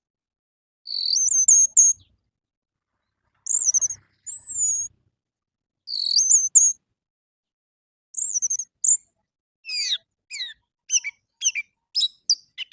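Orange-headed thrush singing: short, high, varied whistled phrases separated by pauses, then a quick run of descending notes near the end.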